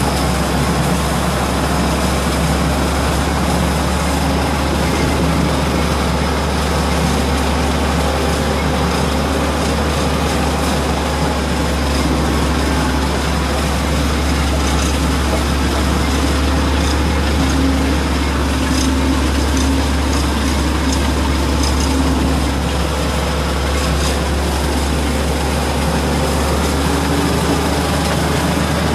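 Farm tractor's diesel engine running steadily under load, driving a four-row cotton stalk shredder across a harvested cotton field, heard close from the open driver's seat as a constant low drone with machinery noise over it.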